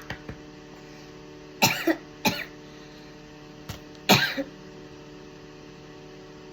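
A girl coughing in two short bouts of a few coughs each, about a second and a half in and again about four seconds in.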